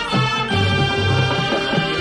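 Marching band playing its field show: brass instruments sounding sustained chords over low bass notes.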